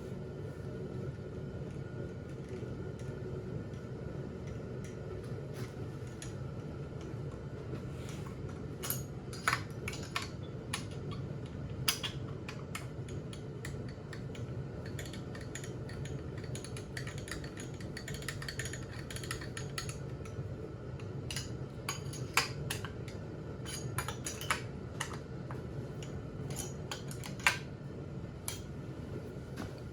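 Small metal tools clicking and clinking against a chainsaw's cylinder bolts as they are snugged down a little at a time, in scattered sharp clicks over a steady low hum.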